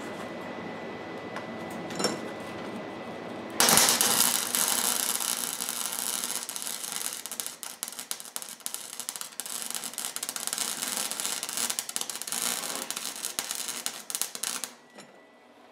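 Flux-core wire-feed welder arc crackling steadily as a weld bead is run, striking a few seconds in and cutting off sharply near the end. Before the arc a steady hum and a single click are heard.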